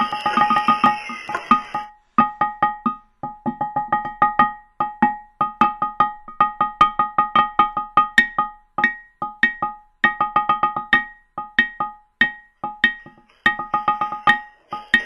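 Sonorous stones struck in quick, uneven runs of sharp knocks, each ringing briefly at the same few pitches, like a lithophone, with short pauses between the runs. A hiss sits under the first two seconds.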